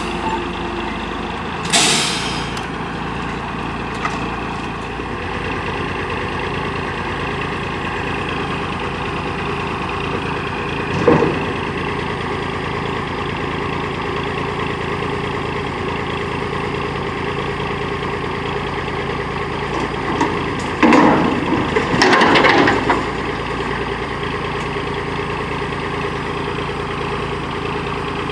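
Diesel engine of a 1986 Peterbilt 310 front-load garbage truck with an Amrep Octo body running steadily as its front forks lift a steel dumpster up over the cab. A short sharp air hiss comes about two seconds in, a single metal clank near the middle, and a burst of metal banging and rattling a little past twenty seconds.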